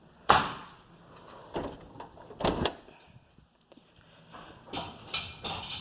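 New house doors being closed by hand: one loud bang a fraction of a second in, then several lighter knocks and clicks from the doors and their latch hardware.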